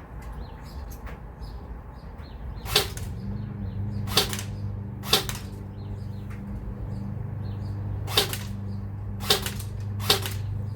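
Tippmann Air Raid AR6BB airsoft electric gun (AEG) firing six single shots at uneven spacing, each a sharp crack. A steady low hum starts about three seconds in, with faint bird chirps behind.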